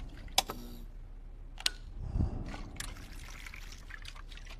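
Three wall light switches clicking one after another, about a second apart: a wrong switch flipped on, the requested switch flipped, then the wrong one flipped back off. Low thuds and a steady low hum sit underneath.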